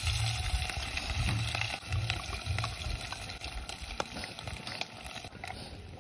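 Close-miked eating of noodles: wet chewing and slurping with scattered small clicks. It is louder in the first half and softer after about three seconds.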